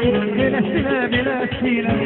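Music: plucked string instruments under a wavering melody line, with no break.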